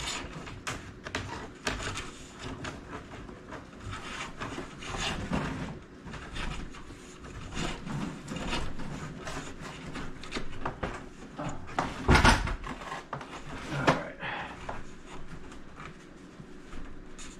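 Electrical cable being pulled by hand through a wall cavity and box, with irregular rubbing, scraping and clicking. A sharp knock sounds about twelve seconds in, and a smaller one a couple of seconds later.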